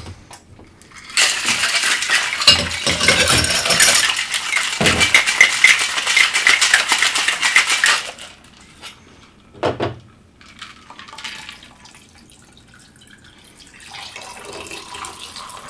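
Ice rattling inside a metal cocktail shaker, shaken hard for about seven seconds, then stopping abruptly. A single knock follows, and near the end the shaken drink is strained from the shaker into a glass with a soft pouring sound.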